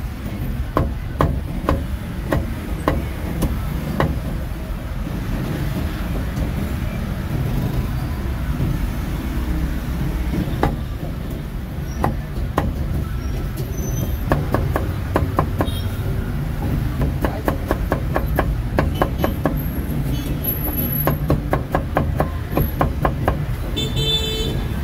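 Street traffic rumbling steadily with a vehicle horn briefly near the end. Over it come runs of sharp knocks, several a second in the second half, typical of a cleaver chopping roast meat on a wooden block.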